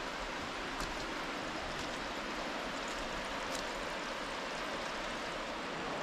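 Steady rushing of a waterfall still some way off, heard through the forest, with a couple of faint clicks.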